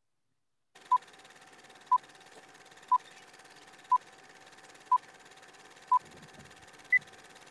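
Film-leader countdown beeps: six short, identical beeps one second apart, then a higher-pitched seventh beep a second later, over a faint hiss.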